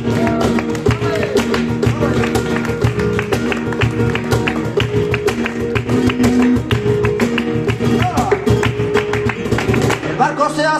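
Live flamenco: a flamenco guitar plays continuously over sharp rhythmic hand clapping (palmas), and a man's singing voice comes in again near the end.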